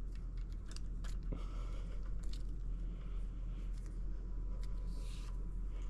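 Hands tying a knot in braided line threaded through a plastic servo horn: faint scattered clicks and rubbing over a steady low hum.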